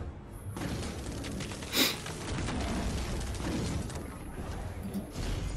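Action-film soundtrack playing: a dense mix of sound effects, with one loud, sharp burst about two seconds in.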